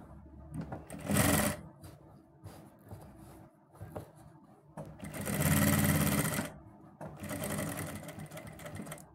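Sewing machine stitching along the edge of a kameez neckline in three short runs, the longest and loudest about halfway through, with brief pauses between as the fabric is guided.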